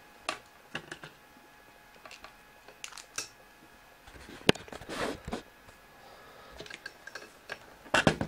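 Sporadic small clicks and taps of hands handling small objects on a workbench, one sharper tap about halfway, and a louder clatter of handling near the end as the multimeter and its test leads are taken up.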